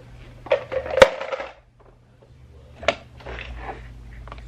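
Handling noises while unpacking: rustling of packaging and clothing with a few sharp clicks and knocks, the loudest about a second in.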